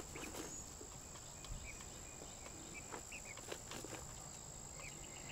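Insects singing in one faint, steady high-pitched drone, with a few short faint chirps and scattered light clicks over it.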